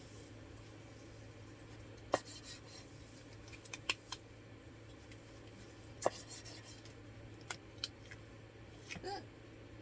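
Sparse sharp clicks and clinks of camp kitchen utensils being handled, a few seconds apart, over a low steady hum.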